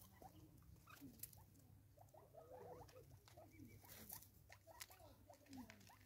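Francolins feeding at a seed feeder: faint, soft low clucking calls over and over, with quick ticks and taps of pecking and scratching on the wooden log.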